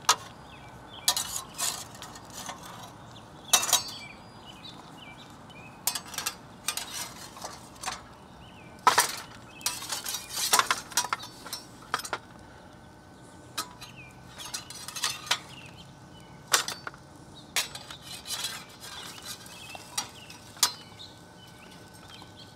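Metal utensil clinking and scraping against a wire grill grate and metal tray as grilled chicken leg quarters are lifted off, in scattered sharp clinks, some in quick clusters.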